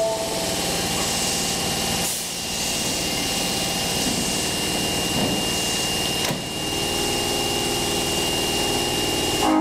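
Osaka Metro Tanimachi Line subway train running, a steady mechanical rumble and hiss with a thin high tone held over it, changing abruptly about two and six seconds in.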